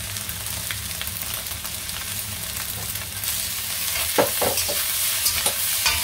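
Fried rice sizzling in a wok while a metal spatula stirs and scrapes it. The sizzle grows louder about three seconds in, and several sharp scrapes of the spatula against the wok come in the last two seconds.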